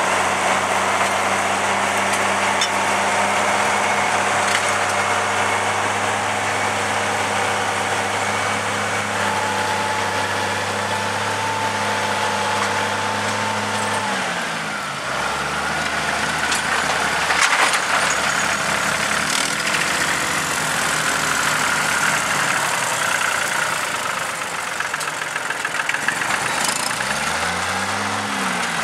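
Diesel farm tractor engines, from an International Harvester and an older green tractor, running steadily under load as they pull ploughs. About halfway through the engine note shifts, and after that its pitch rises and falls a few times as the tractors pass and turn.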